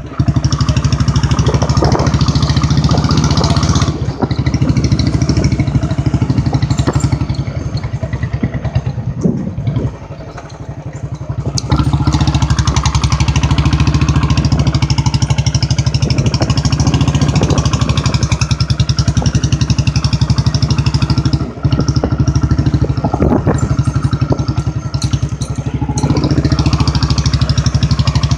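Royal Enfield Bullet single-cylinder engine running under way at a steady exhaust beat. It eases off for a few seconds near the middle, as if the throttle is closed, then picks up again, with the odd knock from the rough track.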